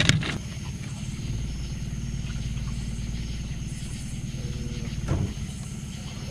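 Small boat motor running steadily at low speed, a low even rumble that deepens slightly about a second in. A short knock at the start and another about five seconds in.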